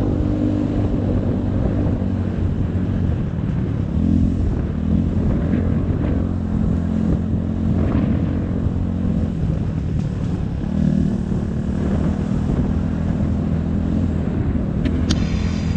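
250 cc dirt bike engine running under load on a trail ride, its pitch rising and falling as the throttle opens and closes, with breaks between pulls. A brief high-pitched squeal near the end.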